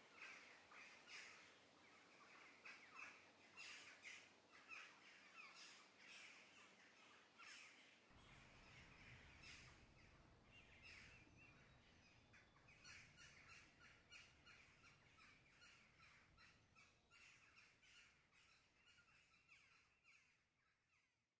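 Near silence, with faint irregular short crackles or calls that fade out at the end.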